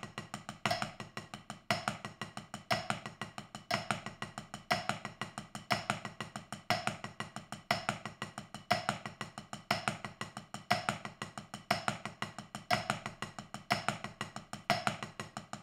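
Drumsticks playing a practice-pad exercise: a six-stroke sticking (right, left, double right, double left) as sextuplets, six strokes to each beat at 60 beats per minute. It is a steady, even run of strokes with a stronger stroke about once a second.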